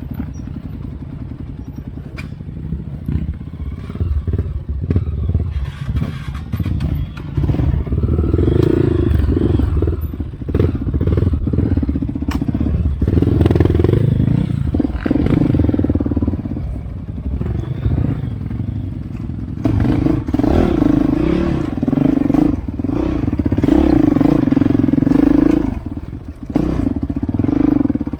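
Off-road motorcycle engine running and revving unevenly as it works over a rough trail, getting louder in several surges, with knocks and clatter from the ride.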